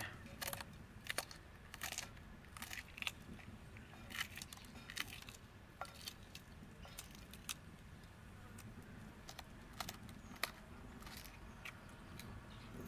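Small knife slicing green chillies held in the hand: a run of faint, crisp snips and clicks, irregularly spaced about once or twice a second.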